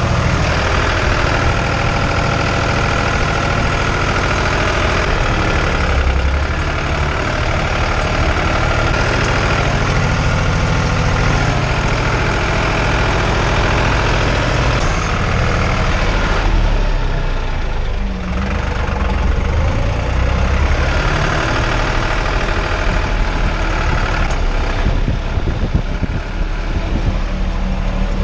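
Tractor engine running steadily under work, with mechanical noise from the machinery.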